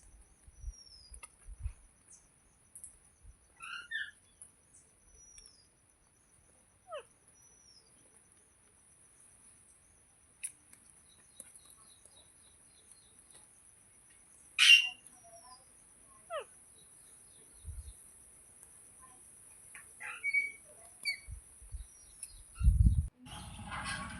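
Green parrot giving sparse short chirps and squeaky calls, some gliding downward in pitch, with long quiet gaps between them and one sharp, loud call about halfway through. A low thump sounds near the end.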